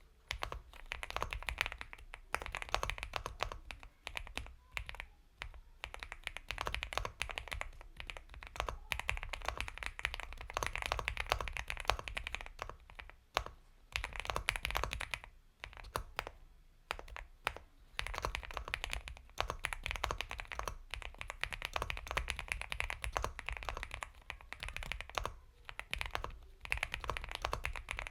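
Mechanical keyboard with Gateron Milky Yellow Pro linear switches (Epomaker x Feker Galaxy 80) being typed on in fast, dense runs of keystrokes, with a few brief pauses in the middle.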